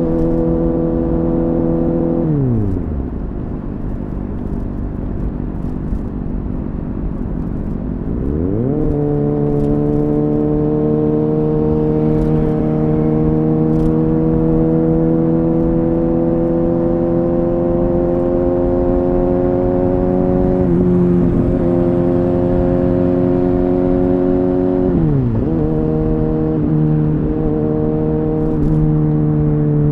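Kawasaki Ninja ZX-6R's 636 cc inline-four engine with an Akrapovic exhaust, ridden and picked up by a recorder in a bag. The revs fall away a couple of seconds in and stay low for several seconds, then the engine pulls up sharply and climbs slowly in pitch, with a brief dip about two-thirds of the way through and a quick drop to lower revs, like a gear change, near the end.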